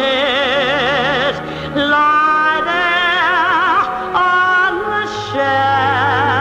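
A woman singing a slow ballad in full voice, holding long notes with a wide vibrato and moving to a new note every second or so, over sustained low instrumental accompaniment.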